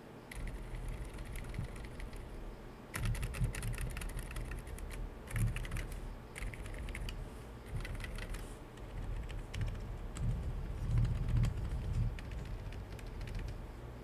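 Typing on a CIY Tester68 mechanical keyboard fitted with silent frankenswitches (Holy Panda clone housings with Zifriend Panda stems). Rapid keystrokes grow dense about three seconds in, then thin out toward the end.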